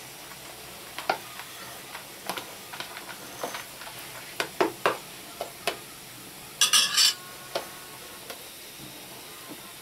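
Grated cheese and dill shaken out of a plastic food tub over pizza in a cast-iron frying pan: a scatter of light taps and clicks against the plastic, then a brief clattering rattle about seven seconds in, over a faint steady hiss.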